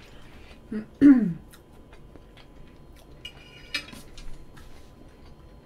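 A short falling vocal sound about a second in, then a metal fork clinks against a ceramic tray with a brief ringing tone about three and a half seconds in, among faint small clicks.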